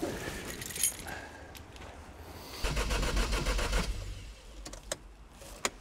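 Keys jangle and click at the ignition, then the MG TF's engine cranks on the starter for about a second without catching. It is not firing, which the owner suspects could be the faulty ignition coils.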